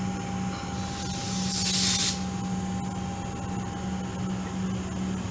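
Three-car Comeng electric train standing at the platform with a steady electric hum and a thin whine, and a burst of compressed-air hiss lasting under a second about a second and a half in, as its air brakes release before it pulls away.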